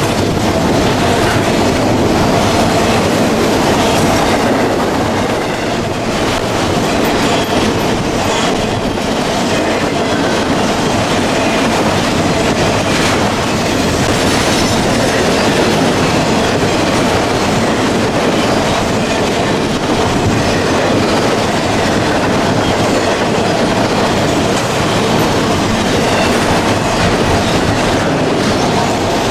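Freight train of enclosed autorack cars rolling past close by: a loud, steady rumble and rattle of steel wheels on the rails.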